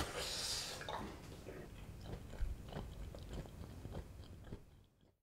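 A bite into a mini pan pizza, a crackly crunch at the start, followed by chewing with small irregular crunches that fade out near the end.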